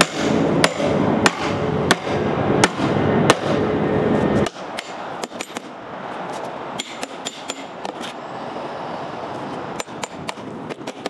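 Sharp hammer-like strikes about every two-thirds of a second over a loud steady din. This stops abruptly about four and a half seconds in, giving way to quieter, irregular clicks and taps of a metal pry tool working at the edge of a plastic mould of set cement.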